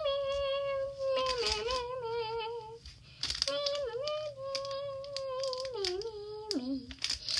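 A high voice humming two long, drawn-out notes with a slight wobble. The second note slides down in pitch near the end.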